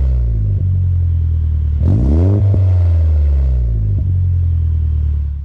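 Vehicle engine idling with a low, steady hum. About two seconds in it is revved once, rising quickly in pitch and falling back to idle, with a couple of sharp clicks along the way. The sound cuts off abruptly at the very end.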